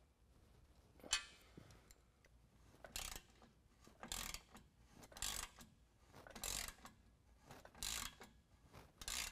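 Hand ratchet with a 15 mm socket tightening an exhaust band clamp: seven short bursts of pawl clicking, about one a second, as the handle is swung back and forth.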